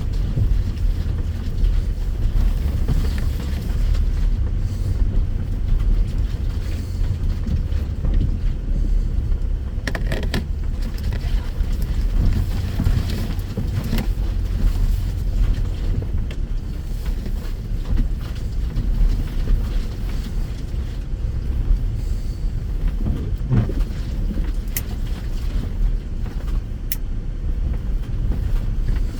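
Land Rover Discovery driving slowly along a rough off-road track, a steady low engine and drivetrain rumble with a few short knocks and rattles from the bumpy ground.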